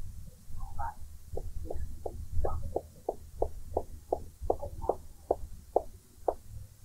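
A rapid run of about fifteen knocks, roughly three a second, starting about a second and a half in, over a low rumble of recording noise.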